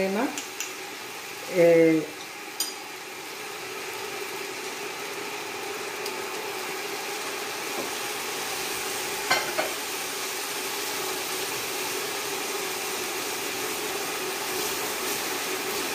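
Diced sweet potato and vegetables sizzling steadily as they fry in a non-stick pan. There are a few light clicks of the spatula, and stirring near the end.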